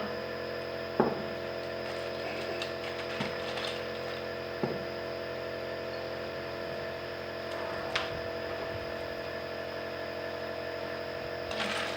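A steady mechanical hum made of several pitched tones, broken by a few sharp clicks about one, five and eight seconds in.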